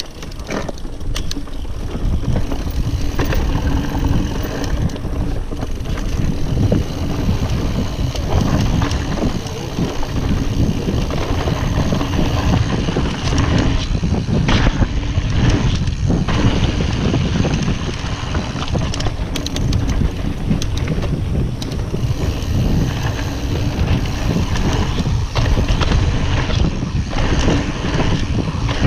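Mountain bike riding fast down a dirt trail: tyres rumbling over the dirt and wind buffeting the camera microphone, with a few sharp clacks of the bike rattling over bumps about halfway through.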